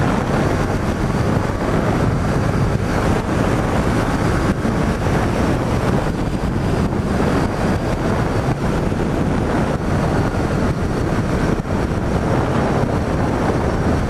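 Wind rushing over the microphone of a moving motorcycle, with the steady drone of the Yamaha FZ-07's parallel-twin engine underneath.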